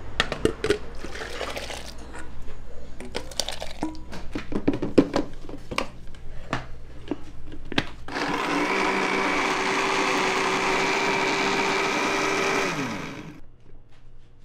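Scattered clatter and knocks, then an electric blender runs steadily for about four seconds and winds down with a falling pitch as it switches off.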